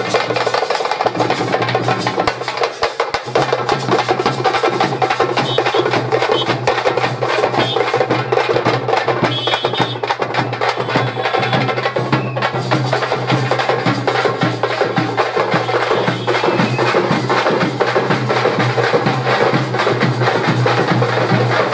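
A street drum troupe beating drums with sticks in fast, dense rhythms, over a steady low hum.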